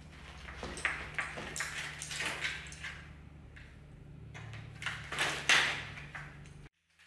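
Khevsur sword's steel blade swishing through the air as it is swung, a series of quick swishes, the loudest about five seconds in, over a steady low hum that cuts off just before the end.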